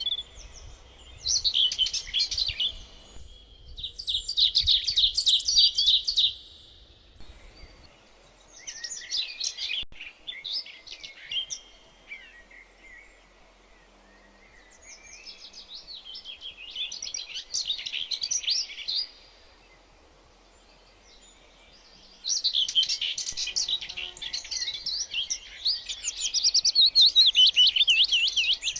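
Songbirds chirping and singing in repeated bouts of rapid, high trills separated by short pauses. The longest and loudest bout comes near the end.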